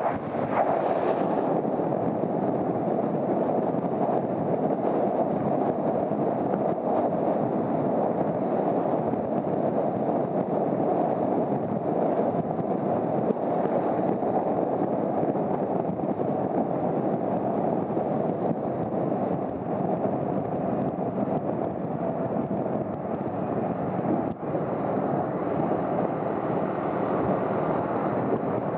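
Steady rush of wind and road noise while riding a Honda CBR250R motorcycle at speed, with wind buffeting the microphone.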